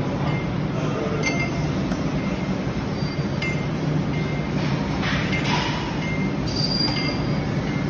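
Gym background: a steady low hum with a few sharp metallic clinks of equipment scattered through it.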